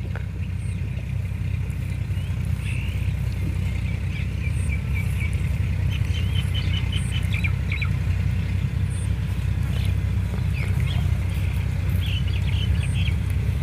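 A steady low rumble, with small birds chirping in short trills now and then.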